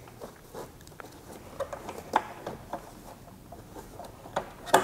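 Scattered light clicks and taps of gloved hands handling the plastic grille housing and fitting small tab nuts into it, with one sharper click near the end.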